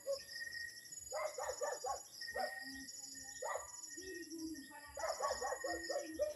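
Birds chirping in repeated short trills, with a steady insect trill coming and going behind them. A sharp knock comes right at the end.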